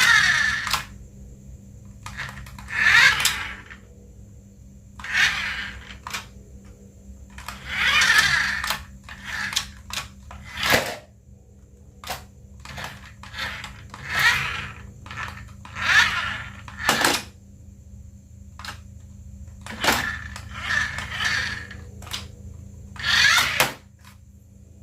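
Handling noises from unboxing a remote-control car: repeated short rustles and scrapes, each about a second long, with sharp clicks and knocks between them.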